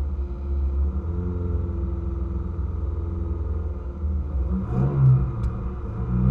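Rally car engine idling, heard from inside the cabin, with a couple of quick throttle blips near the end.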